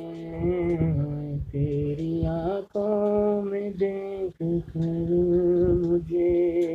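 A man singing a naat solo, drawing out long, wavering notes in slow phrases with short breaths between them.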